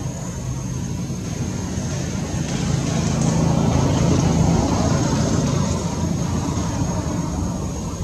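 A low, droning engine of a passing vehicle that swells about halfway through and then eases off, with a thin steady high-pitched whine underneath.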